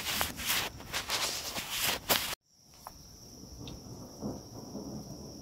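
Close, crackly rustling noise that cuts off abruptly a little over two seconds in. Then night insects keep up a steady high drone, with a faint low rumble of distant thunder.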